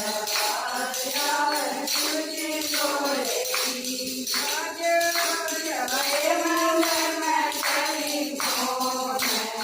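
Haryanvi Shiva bhajan: singing of a devotional melody over steady, rhythmic jingling hand percussion.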